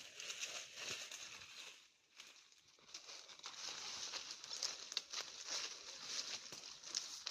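Crinkling, rustling noise with many small sharp clicks, dropping away briefly about two seconds in and then resuming.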